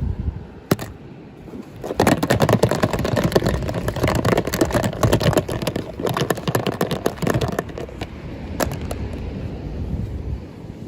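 Plastic toy packaging being handled and opened: a single sharp click, then several seconds of dense, rapid crinkling and clicking, easing off with one more click.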